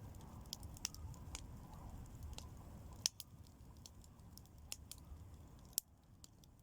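Ritual bonfire of fresh fern crackling faintly, with scattered sharp pops over a low rumble that drops quieter about three seconds in.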